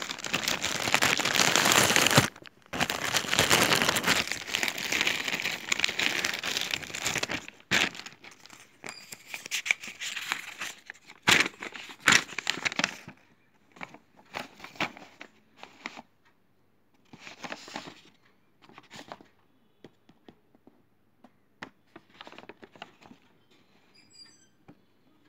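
Plastic packaging crinkling and rustling as it is handled and opened. It is dense and continuous for the first seven seconds or so, then breaks into scattered rustles and clicks that grow sparser toward the end.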